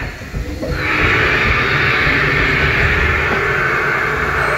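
Dinosaur ride soundtrack from loudspeakers: music mixed with an animal roar sound effect for the animatronic dinosaur. It dips briefly at the start and comes back loud about a second in.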